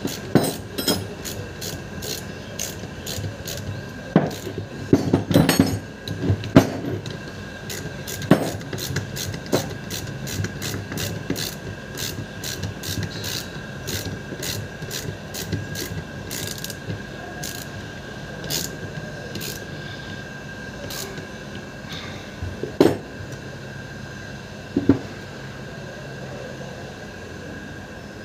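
Socket ratchet wrench clicking in quick runs as it turns a bolt on a car starter motor. The clicking thins out in the second half, with a couple of louder knocks near the end.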